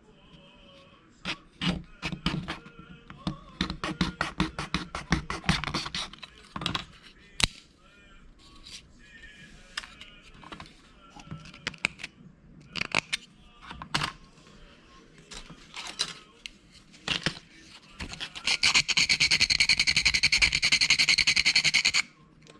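Rapid clicking and scraping of small plastic model-kit parts and hobby tools being worked. Near the end comes about three seconds of a steady, very rapid high buzzing.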